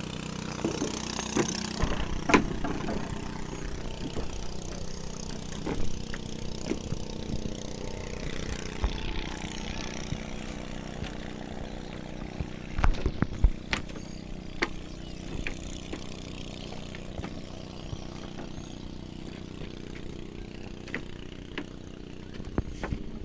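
An engine idling steadily, with scattered knocks and clatter over it.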